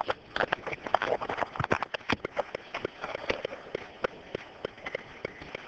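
Handling noise from a handheld camera being jostled and carried: rapid, irregular clicks and knocks with rustling against the microphone.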